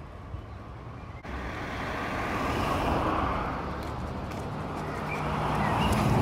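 Road traffic: a car passing on the road, its tyre and engine noise swelling to the loudest about three seconds in and fading, then a lower engine hum building near the end as another vehicle approaches.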